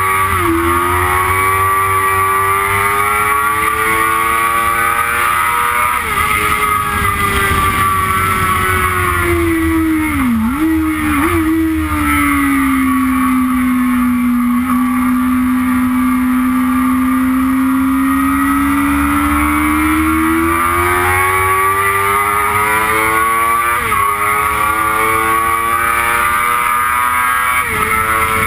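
Yamaha R6's inline-four engine at high revs, heard from the bike over wind rush on the microphone. The pitch climbs, drops sharply with an upshift about six seconds in, falls to a low note with a couple of short blips around ten seconds, then climbs slowly and steadily for a long stretch, with two more upshifts near the end.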